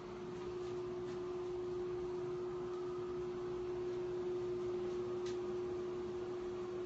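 A steady hum at one unchanging pitch, with a faint click about five seconds in.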